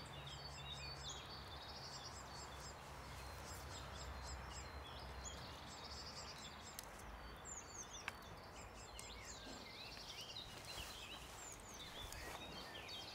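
Songbirds chirping and trilling in short, repeated phrases, faint over a steady outdoor background noise, with a single sharp click about eight seconds in.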